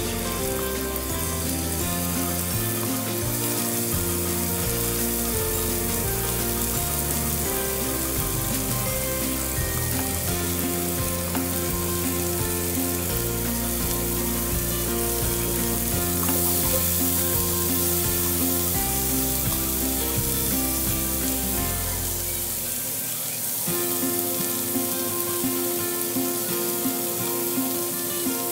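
Shrimp frying in melted butter in a skillet: a steady sizzle throughout, with background music underneath.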